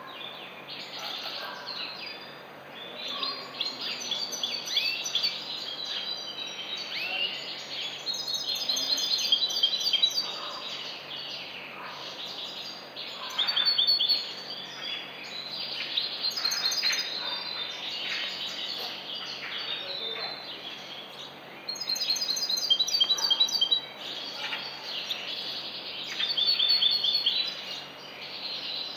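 A caged European goldfinch singing a long, continuous twittering song of rapid trills and quick repeated high notes, with several louder bursts along the way.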